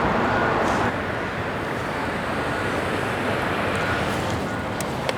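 Steady vehicle noise, an even rumble and hiss that drops slightly in level about a second in, with two short clicks near the end.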